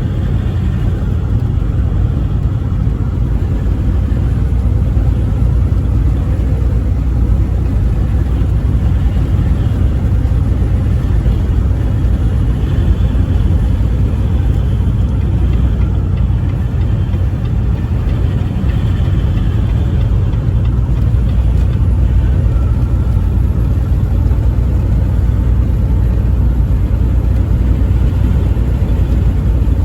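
Steady low rumble of a vehicle driving on the interstate highway: engine and tyre noise at cruising speed, with no horn sounding.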